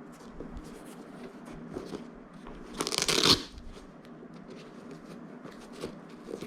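Shoes and their packaging being handled: small clicks and rustles, with one louder rasping rustle about three seconds in, lasting about half a second.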